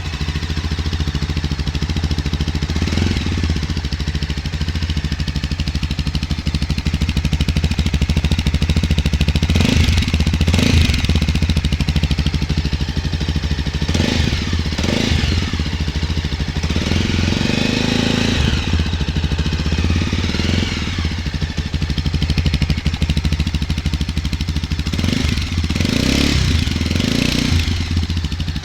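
Mahindra Mojo 300's single-cylinder engine idling through its exhaust, with a steady low beat, blipped several times in short revs.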